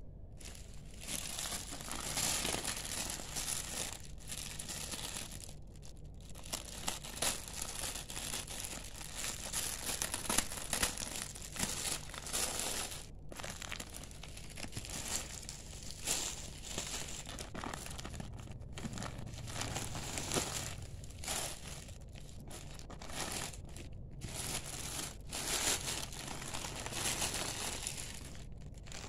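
Black plastic bag and the shrink-wrapped packs of toilet-paper rolls crinkling and rustling as they are handled and pulled out, with a few short pauses.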